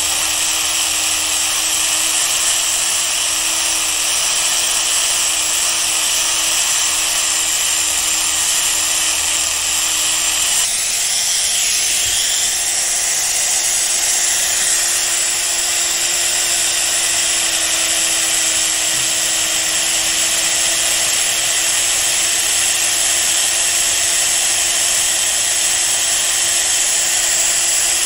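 Power tool running steadily while resurfacing the steel blades of tailor's shears to take off pitting and discoloration, with a continuous hiss and a steady hum. About eleven seconds in, its pitch steps up slightly.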